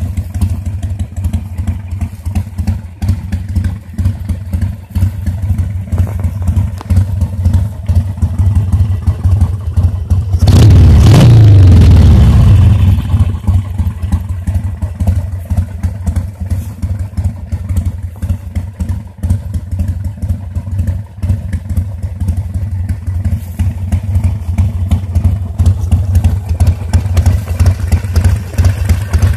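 Harley-Davidson Sportster 1200 Seventy-Two's air-cooled 1200 cc V-twin, fitted with a Screamin' Eagle kit, idling loudly. About a third of the way in a single throttle blip sends the revs up sharply, and they fall back to idle over the next two seconds.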